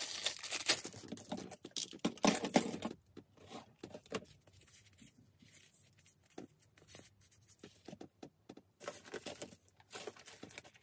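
Crinkling and tearing of a thin clear plastic bag being pulled off a small plastic photocard binder, dense in the first three seconds, then lighter rustling and small taps of plastic card sleeves being handled, with another burst of crinkling near the end.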